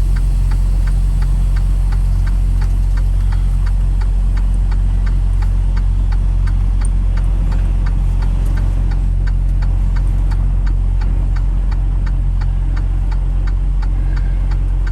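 Vehicle engine running steadily at low speed while manoeuvring, with light, even ticking a few times a second over it.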